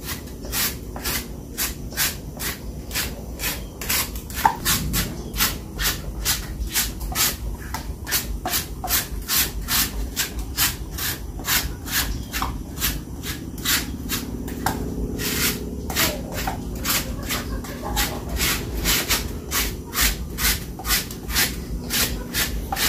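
Banana plant stem being shredded by hand with a shredding knife: a regular run of rasping strokes, about three a second.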